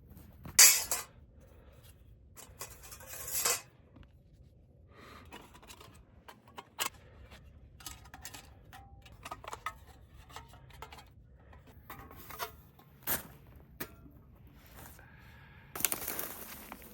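Metal gear being handled: scattered clinks and knocks, with louder bursts of rustling about a second in, near the fourth second and near the end.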